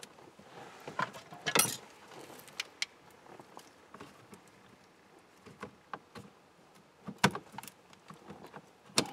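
Scattered clicks, knocks and light rattles of hands working parts into a steering column as a turn signal switch and its wiring are lined up and set back in place, with a louder rattle about a second and a half in and sharp knocks about seven seconds in and near the end.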